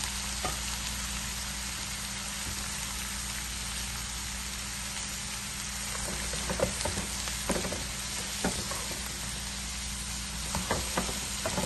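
Chopped red onions sizzling in hot oil, the oil the chicken was fried in, in a coated frying pan: a steady hiss. From about six seconds in, a spatula stirs them, with scattered scrapes and knocks against the pan.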